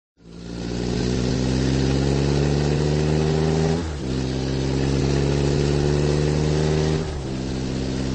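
Car engine running, laid over the scene as a sound effect. It fades in over about a second, and the engine note dips briefly twice, about four seconds in and again about seven seconds in, like gear changes.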